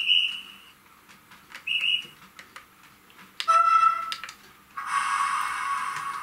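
Sound effects from a model electric locomotive's sound decoder: two short, high-pitched whistle blasts, then a louder horn blast about three and a half seconds in, and a long held horn note starting near the end.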